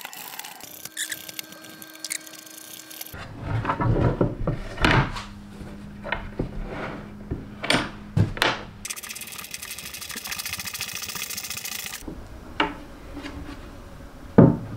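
Hand screwdriver driving screws into hinges on a wooden cabinet, with scattered sharp wooden knocks and clicks as the parts and the panel are handled.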